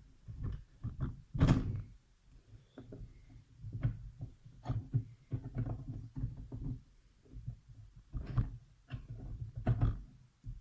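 Irregular knocks and clunks of scooter variator parts and tools being handled during disassembly, the loudest a sharp knock about a second and a half in.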